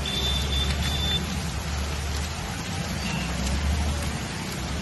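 Heavy rain pouring on a flooded street, with a steady low rumble of traffic. A thin high tone sounds briefly, in short pieces, in the first second.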